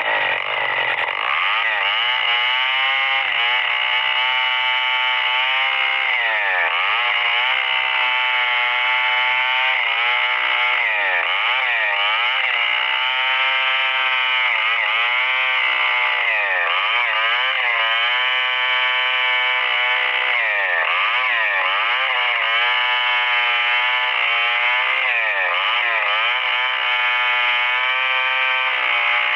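Stihl 070 two-stroke chainsaw running under load while ripping lengthwise through a hardwood merbau log. Its engine pitch dips and rises over and over, about once a second, as the saw is worked forward and back in the cut.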